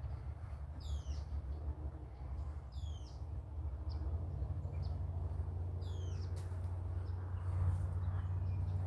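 A bird calling three times, each call a quick high whistle sweeping downward, with a few short chirps between, over a steady low rumble.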